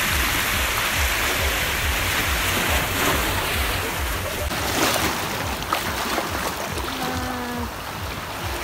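Shallow sea water washing and swirling over a rocky shore, a steady rushing of small waves, with wind buffeting the microphone. A short voice-like tone sounds about seven seconds in.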